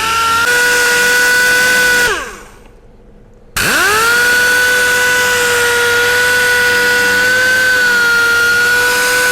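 Sanding machine with a 2000-grit disc, wet-sanding a plastic headlight lens: a steady motor whine that winds down and stops about two seconds in. About three and a half seconds in it starts again, its pitch rising quickly, and then runs steadily.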